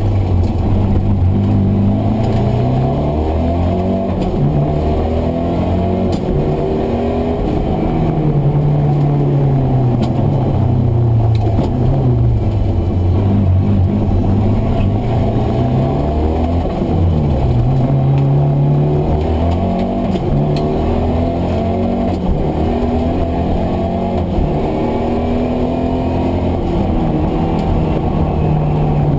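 Mitsubishi Galant VR-4's turbocharged four-cylinder engine, heard from inside the cabin while driven hard. The revs climb and drop over and over with gear changes and corners.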